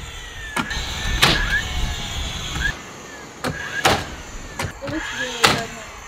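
Cordless nail gun firing nails into charred shou sugi ban wood window trim: about five sharp shots at uneven intervals.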